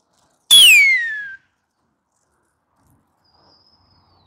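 A loud human whistle: one falling note that starts about half a second in and slides down over just under a second. It is a pigeon fancier whistling to his flying flock of kash pigeons.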